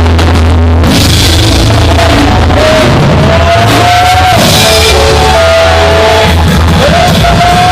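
Loud live church band music with a heavy steady bass, long held notes sliding up and down in pitch over it, echoing in a large hall.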